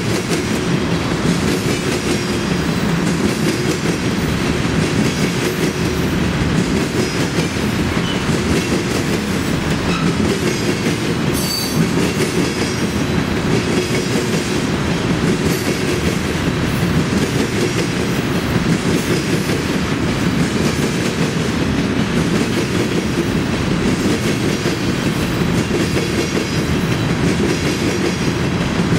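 Freight train of tank cars rolling past close by: a steady, loud rolling noise of steel wheels on rail, with a short high-pitched wheel squeal near the middle.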